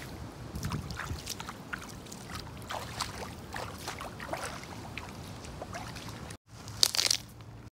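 Shallow lake water lapping and splashing over a pebble shore, with irregular small splashes of bare feet wading through it. Near the end there is a short break, followed by a brief, louder burst of noise.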